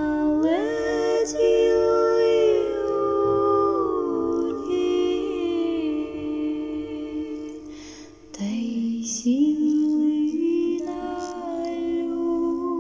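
Wordless vocal music: long held sung notes that slide from pitch to pitch. The voice fades about eight seconds in, then a new held phrase begins.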